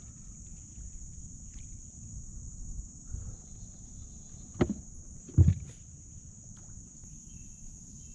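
Steady high-pitched insect chorus buzzing without a break. Two sharp knocks a little under a second apart, just past the middle, stand out as the loudest sounds.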